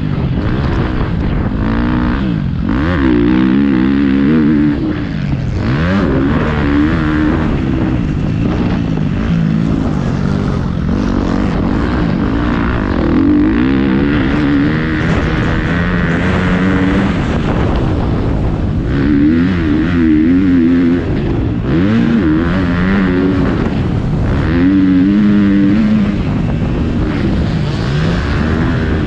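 Motocross bike engine heard from the rider's helmet camera, revving up and dropping back over and over as the bike is ridden around a dirt track.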